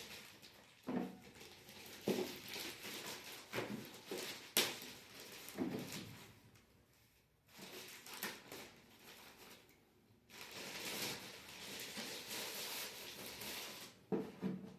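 Air purifier packaging being handled: scattered knocks and thumps on cardboard, with stretches of rustling and crinkling from plastic or paper wrapping, and a short pause in the middle.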